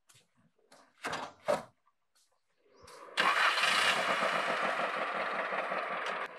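Two quick thumps about a second in. Then a motor vehicle engine starts about three seconds in and runs loudly until it cuts off suddenly near the end.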